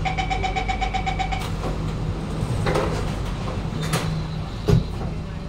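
Door-closing chime of a Kawasaki-Sifang C151B metro train: a rapid string of high beeps for about a second and a half. The doors then slide shut, with a sharp click about four seconds in and a loud thump just after, over the carriage's steady hum.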